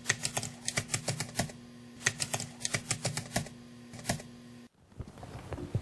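Keys being typed in quick strokes, two runs of about a second and a half with a short pause between and one last stroke after, over a steady hum that cuts off abruptly near the end.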